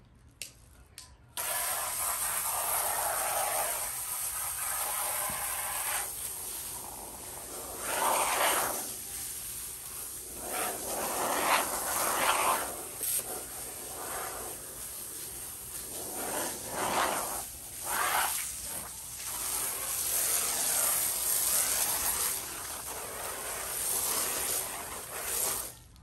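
Water running steadily, rinsing grime off interior trim pieces. It starts abruptly about a second in, swells louder several times, and cuts off just before the end.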